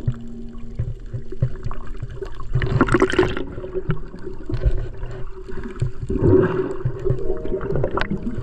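Water splashing and sloshing over a steady low rumble, with two louder splashes about three and six seconds in and a sharp click near the end.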